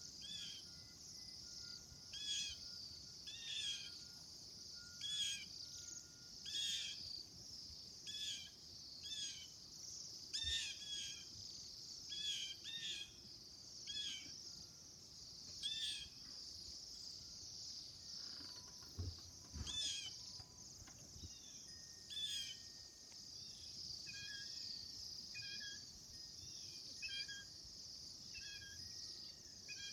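Birds chirping, short repeated call notes about once a second, over a steady high buzz of insects such as crickets. A couple of soft low thumps come a little past halfway.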